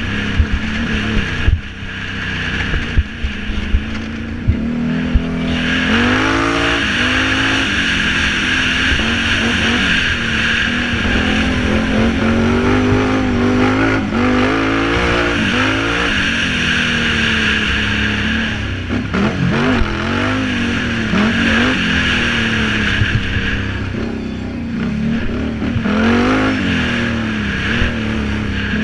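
Can-Am Renegade 800R ATV's V-twin engine revving up and down again and again as the quad is ridden hard over a dirt track. A few sharp knocks come in the first few seconds, with the engine lower, before it pulls on with a steady rushing noise over it.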